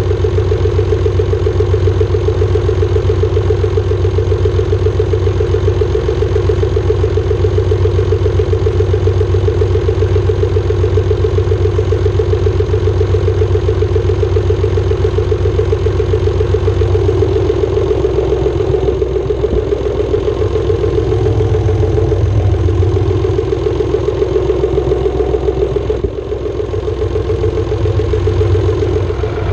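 Diesel engine of a 1980 Massey Ferguson 230 tractor idling steadily. Its note shifts slightly a little past halfway, with a brief dip a few seconds before the end.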